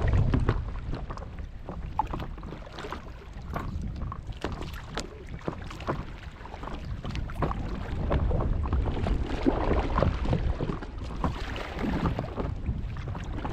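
Water splashing and lapping around a stand-up paddleboard as a paddle is dipped and pulled through the water, with wind rumbling on the microphone.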